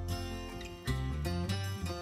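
Background music led by plucked string instruments, with notes changing every half second or so.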